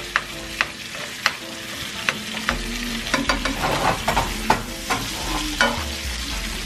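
Two steaks sizzling in hot fat in a nonstick frying pan while a spoon bastes them, the spoon scraping and clicking against the pan at irregular moments over the steady sizzle.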